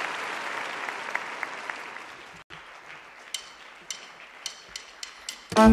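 Audience applause fading over the first couple of seconds, followed by a few separate sharp clicks, then the band strikes up with a loud hit just before the end.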